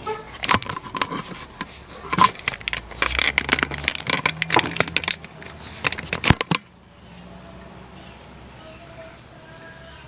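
Metal hand tools being handled, a run of irregular clicks and clanks, that stops suddenly after about six and a half seconds and leaves a faint steady hum.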